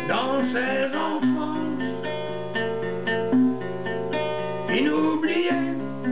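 Song accompaniment of strummed acoustic guitar chords between sung lines, with a short gliding melodic phrase just after the start and again about five seconds in.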